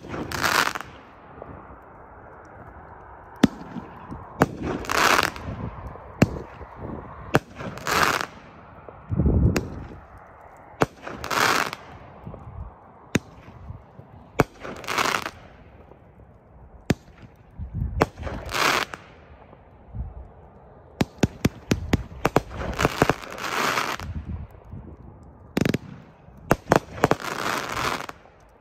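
Shots from a 500-gram consumer fireworks cake: sharp launch and break reports, each shell followed by about a second of crackle, one shot roughly every three seconds, with a quick run of cracks near the end.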